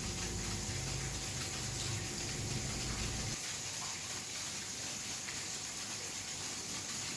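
Steady rushing noise of running water, with a low hum under it that cuts off about three and a half seconds in.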